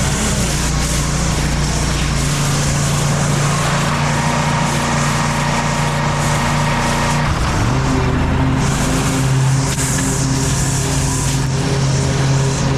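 Lawn mower engine running steadily under load, its tone shifting about seven seconds in.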